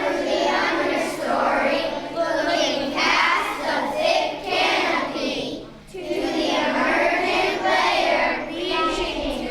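A group of children singing together in sustained phrases, with a brief break between phrases about six seconds in.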